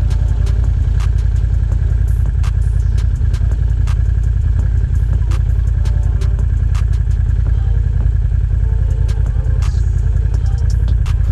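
Can-Am ATV engine idling close to the handlebar-mounted camera, a steady loud low rumble with sharp clicks and rattles scattered through it.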